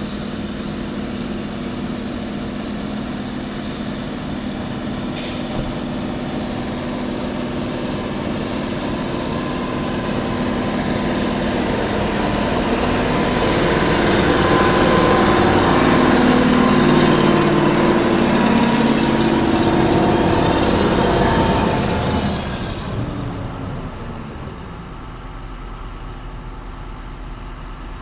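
Heavy diesel engine of pile-driving equipment running steadily. It builds up louder past the middle, as if under load, then falls back and winds down near the end.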